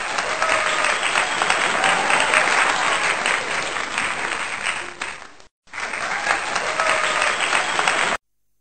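A crowd applauding: dense, steady clapping that drops out for a moment about five and a half seconds in, then resumes and cuts off abruptly near the end.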